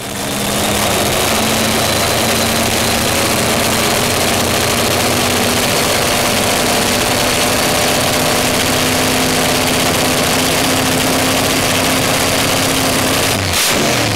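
A loud engine running at a steady speed, its pitch creeping up slightly, over a dense hiss. There is a short break near the end.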